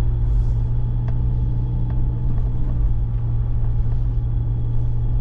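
Steady engine and road rumble of a 4x4 driving on a snow-covered track, heard from inside the cabin.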